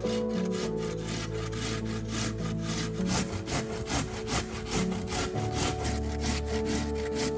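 A peeled raw potato being grated by hand on the coarse side of a stainless-steel box grater, a rhythmic rasping of about three strokes a second.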